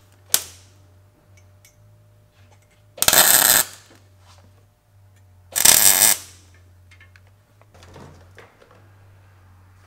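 Arc welder tacking a wastegate flange onto a stainless steel turbo manifold: a brief burst right at the start, then two loud crackling welding bursts of under a second each, about three seconds in and again near six seconds, over a low steady hum.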